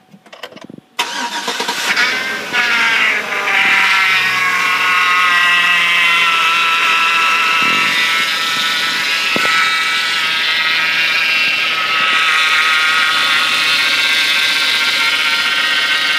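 Chevy Avalanche's V8 starting about a second in, flaring and settling to idle. Over the idle runs a loud, steady whining noise from the belt-driven accessories, which the owner cannot yet pin on the alternator, the A/C compressor or the power steering pump.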